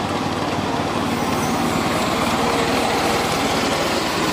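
Small ride-on live-steam locomotive running past, with a rapid, even pulsing from its exhaust and running gear.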